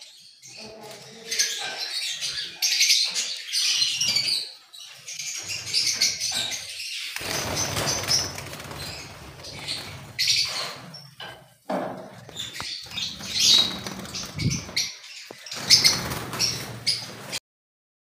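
A flock of caged lovebirds chirping shrilly and continuously, with wings flapping. The sound cuts off abruptly near the end.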